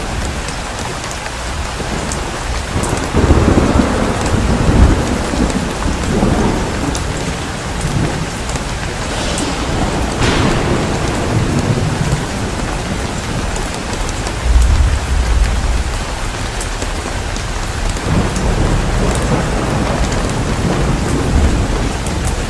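Steady rain falling through a thunderstorm, with rolls of thunder rumbling in and out; the heaviest rumbles come about three to five seconds in and again around fourteen to fifteen seconds in.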